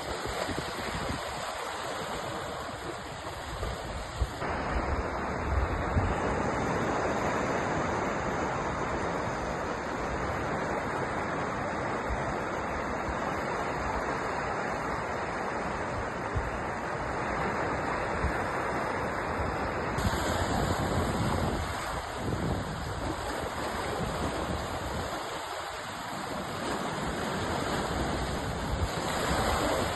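Sea waves washing onto a shore: a steady rushing surf that swells and eases gently.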